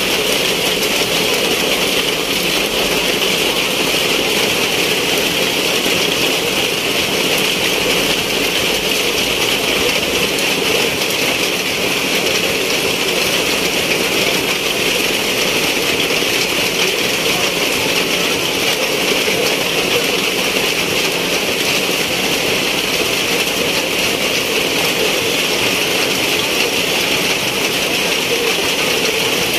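Heavy rain pouring steadily onto wet pavement, a constant even hiss.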